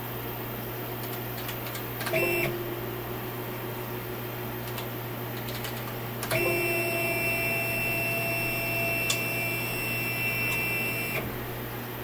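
Stepper motor of a CNC 3020 router driving the Y-axis ball screw, whining at a steady pitch. A short move lasts about half a second, about two seconds in, and a longer move runs about five seconds from about six seconds in. A constant low hum lies under both.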